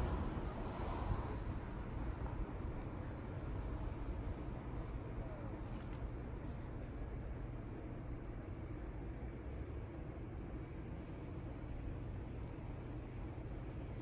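A flock of small birds, which the uploader takes for chimney swifts, giving many short, high chittering calls in repeated clusters, over a steady low rumble.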